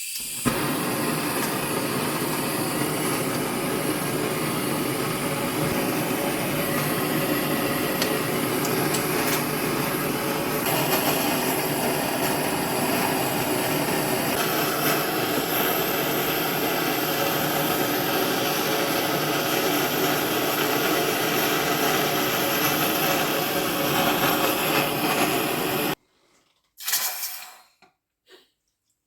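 Goldsmith's gas torch burning steadily with a loud rushing hiss as it melts gold for a new ring. The flame shifts slightly in tone twice, then cuts off suddenly near the end, followed by a couple of short knocks.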